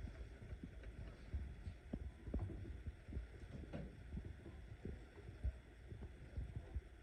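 Faint, scattered low thumps and a few light knocks over a soft rumble, with no tone or hum from the amplifier, which is giving no sound.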